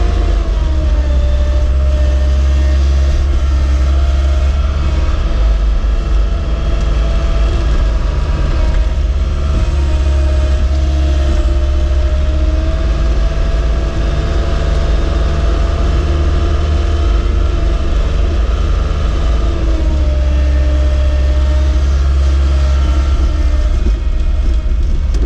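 Caterpillar skid steer's diesel engine running steadily with a heavy low rumble, heard from inside the cab. Its pitch drops slightly near the start, rises a little around the middle and drops again later as the machine works the snow.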